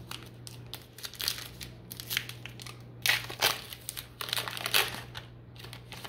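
Foil card-pack wrapper of 2022 Topps Archives baseball cards crinkling as it is torn open and handled, in irregular crackly bursts that are loudest about three seconds in and again near five seconds.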